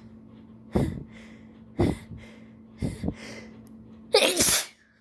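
A person's sneeze buildup: four sharp, catching breaths about a second apart, then one loud sneeze near the end. The fit is set off by allergies and chikkni.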